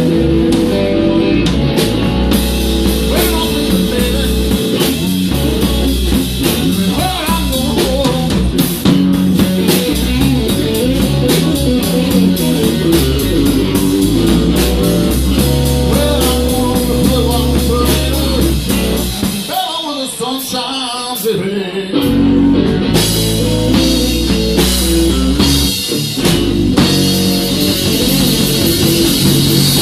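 A live blues trio of electric guitar, electric bass and drum kit playing a slow blues. About two-thirds of the way through, the bass and drums stop for about two seconds, then the full band comes back in.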